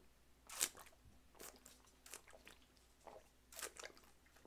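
A man gulping makgeolli straight from a plastic bottle held to his mouth: a string of short swallowing sounds close to the microphone, the first, about half a second in, the loudest.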